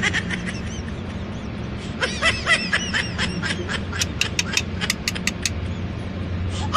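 A flat file scraping the end of a copper pipe in short strokes, giving a run of sharp scrapes, over a steady low hum. Bursts of short high chirps come and go several times.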